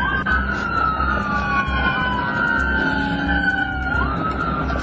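Police car siren wailing, each sweep rising quickly in pitch and then falling slowly, with more than one siren tone overlapping out of step. A steady low vehicle rumble runs underneath.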